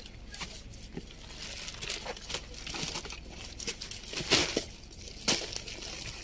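Plastic shopping bags crinkling and rustling as they are carried and set down, with footsteps on a gravelly dirt path. There are two louder crackles about four and five seconds in.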